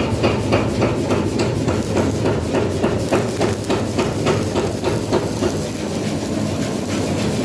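Rapid, even hammering on metal, about three to four blows a second, over a steady low machine hum. The blows grow fainter after about three seconds.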